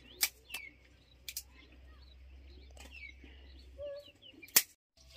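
Small birds chirping faintly, with several sharp clicks or knocks scattered through; the loudest knock comes near the end, followed by a brief dropout to silence.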